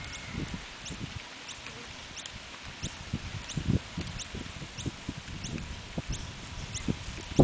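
Sulphur-crested cockatoo pecking at and nudging a plastic water bottle on the grass: irregular dull knocks and taps of beak on plastic. Behind it, a faint short high chirp repeats about every two-thirds of a second.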